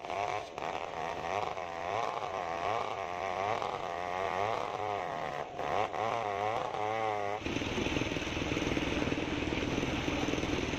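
Two-stroke chainsaw cutting through a sengon log, its engine pitch wavering up and down as the chain bites. About seven seconds in, this gives way abruptly to a steady, rougher mechanical noise.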